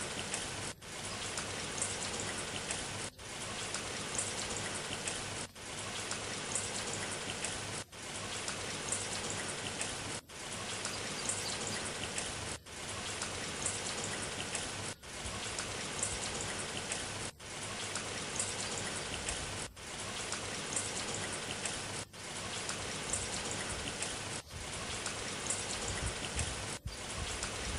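Rain sound effect: a steady hiss of rain that repeats as a loop, breaking off briefly about every two and a half seconds.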